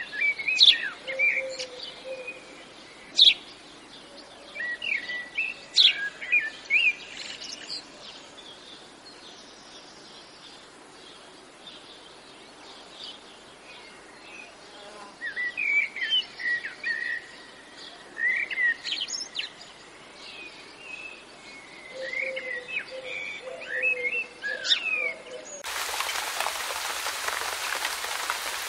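Small birds chirping and calling in short, scattered bursts, with a quieter stretch between them. Near the end the sound switches abruptly to the steady splashing rush of a fountain's water jets.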